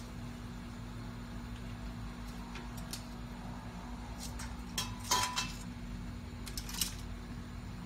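Metal tongs clinking against a stainless steel steamer pot and its basket as lobsters are set in: a few scattered clinks, the loudest a cluster about five seconds in with a brief ring, over a steady low hum.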